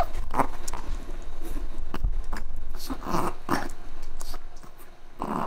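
Chihuahua gnawing on a dried calf neck bone chew: irregular clicks and crunches of teeth on bone, with a few louder crunching bursts.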